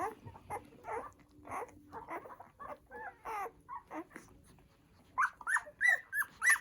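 Newborn poodle puppies squeaking and whimpering while nursing. A string of short, high, wavering calls comes about two a second, louder and quicker near the end.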